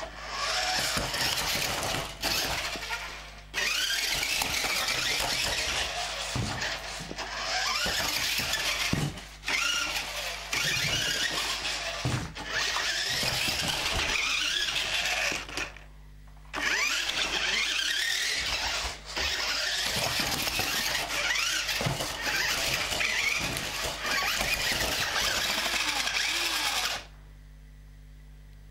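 Toy electric RC car's motor and gearbox whining in bursts of throttle, the pitch rising and falling, with several short pauses and a stop shortly before the end.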